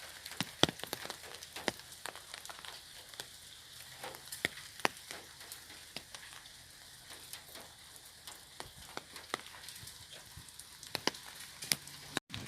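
Raindrops falling on an umbrella: scattered, irregular taps of differing loudness over a soft, steady patter of rain. The sound cuts out for an instant near the end.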